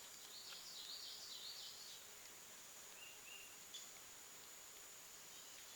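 Quiet outdoor background. A bird sings a quick phrase of high chirping notes during the first two seconds, then gives two short notes about three seconds in, over a steady thin high-pitched hum. There is one faint tick a little after halfway.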